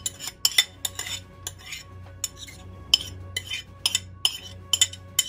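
Metal spoon scraping and tapping against a ceramic bowl, knocking chopped spinach out into a baking dish: a quick, irregular run of sharp scrapes and clinks, about two or three a second.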